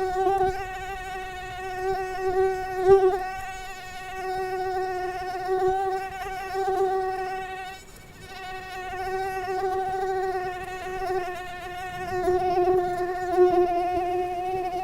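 Mosquito in flight: a steady whining buzz that swells and fades in loudness, with a brief break about eight seconds in.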